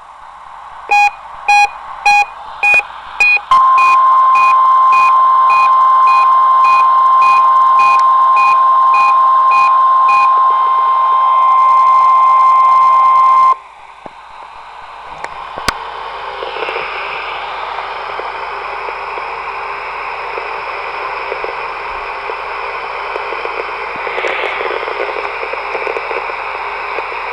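NOAA Weather Radio warning alarm tone test heard through a weather radio receiver. A few short beeps come first, then the steady 1050 Hz alarm tone holds for about ten seconds and cuts off suddenly, leaving an even radio hiss.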